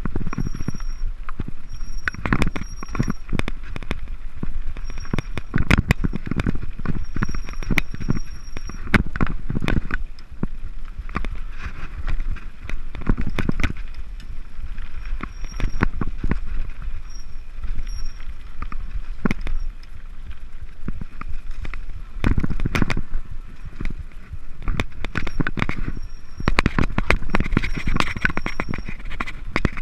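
Mountain bike clattering down a rough dirt-and-stone singletrack: a dense, continuous run of knocks and rattles from the bike jolting over rocks and ruts, with tyres crunching on loose ground.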